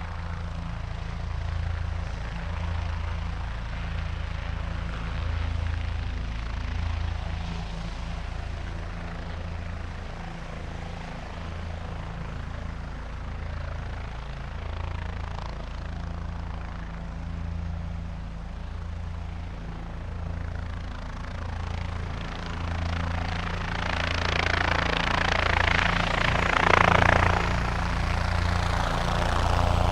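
Helicopter running with a steady low rotor beat, swelling louder near the end with a rush of higher turbine and rotor noise.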